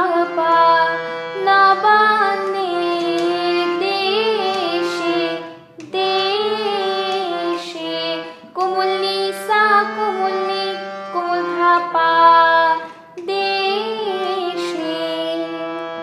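Harmonium playing a melody line over a low sustained note, with a woman singing along. The sound breaks off briefly about five and a half seconds in.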